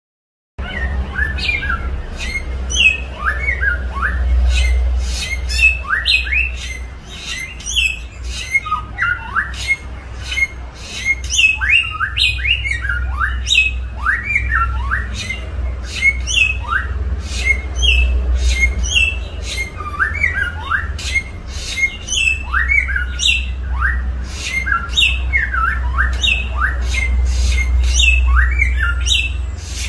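A caged songbird calling and singing in a quick run of sharp notes and short downward-slurred whistles, over a steady low hum in the recording. It starts just after the beginning.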